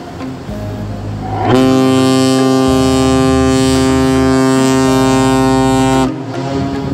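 Ship's whistle sounding one long blast, a steady low horn tone that starts about a second and a half in, holds for about four and a half seconds and cuts off suddenly. Background music runs under it.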